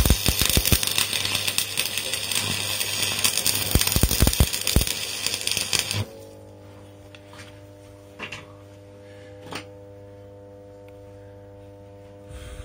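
Electric arc welding: a loud, crackling arc as a nut is plug-welded onto steel, cutting off suddenly about six seconds in. After that a steady low hum is left, with a couple of light taps.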